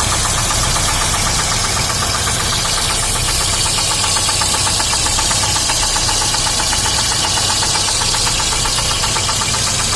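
Daewoo Sens four-cylinder engine running steadily with a fast, even knock tapping in time with the engine. The owner cannot place it: some say a worn bushing, others the crankshaft.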